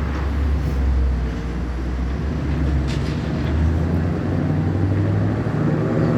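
Heavy diesel engine of a demolition excavator running, a deep steady rumble whose pitch shifts a couple of times as the machine works.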